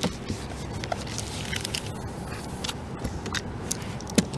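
Sticky roof-seal tape being pressed down by hand onto an RV roof: scattered light clicks and crackles over a low steady rumble, with a sharper click a little after four seconds in.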